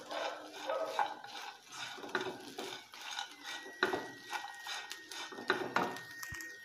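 Wooden spatula stirring and scraping a clam fry around a nonstick pan. It makes irregular scrapes and knocks about once a second.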